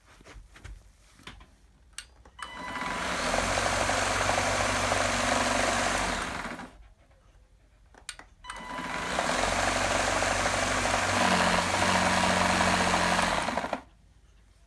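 Gtech AirRam K9 cordless vacuum switched on twice, running about four and five seconds each time before cutting off, with switch clicks in the quiet gaps. The running note is rough, which the owner puts down to something broken around the motor drive belt.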